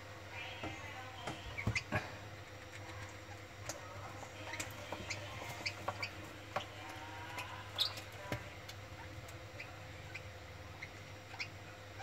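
Lovebird chicks giving short, faint squeaky chirps with soft clicks as they are hand-fed, over a low steady hum.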